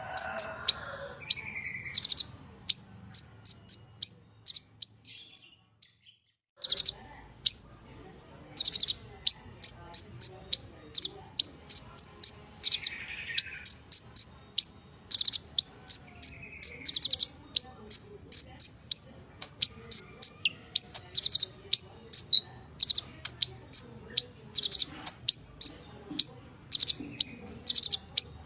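Purple-throated sunbird singing: rapid high-pitched chips broken by short buzzy trills, with a pause of about a second some six seconds in.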